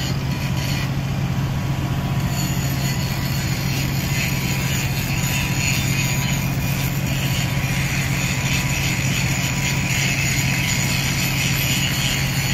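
A moored ferry's diesel engines running at the quay: a steady low drone with an even hiss above it.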